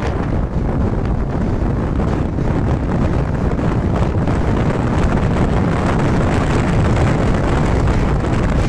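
Loud, steady wind rush on the microphone from riding a Vespa scooter at road speed, with the scooter's engine running underneath.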